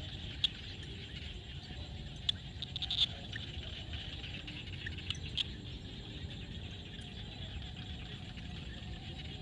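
Frogs calling in a field: a steady chorus, with short sharp calls standing out a few times, in a cluster about three seconds in. A low rumble runs underneath.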